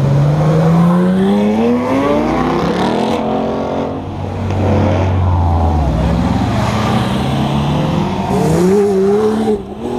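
Exotic sports car engines accelerating away hard, the engine note climbing steadily in pitch over the first three seconds, then climbing again about six seconds in.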